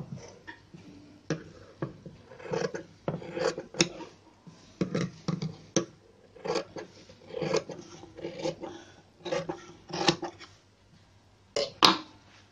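Cloth being handled and cut with scissors: irregular rustling and rubbing of fabric with short snips and clicks. A sharp click near the end is the loudest.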